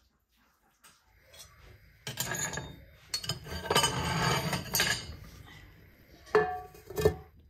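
Metal clattering and scraping on a cast-iron wood-burning stove top, with two sharp, ringing clanks near the end.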